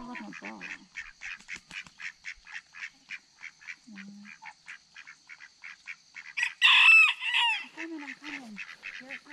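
Domestic ducks quacking in a rapid, regular run of short calls, with a much louder burst of honking calls about two-thirds of the way through.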